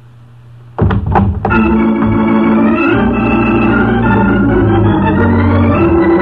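A quick cluster of sharp gunshots about a second in, followed by an organ music bridge of loud held chords marking a scene change in a radio drama.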